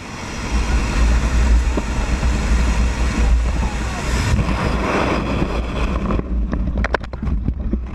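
Steady rush of C-17 Globemaster engine noise and slipstream at the open paratroop door. About six seconds in, the jumper falls clear: the aircraft noise drops away, leaving wind buffeting the microphone and a quick series of sharp flapping snaps as the static-line parachute deploys.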